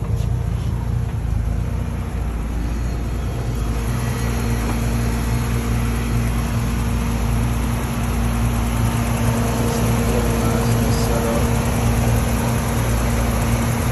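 BMW E30's M20 inline-six, fitted with Dbilas Dynamic individual throttle bodies, idling steadily with the hood open; it gets a little louder about four seconds in.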